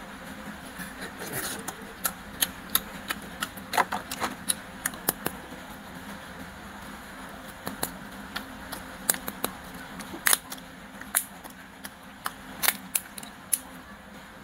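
Hard plastic candy packaging handled in the fingers: irregular sharp clicks and crackles of plastic shells and cups knocking and flexing, in bursts, over a faint steady hum.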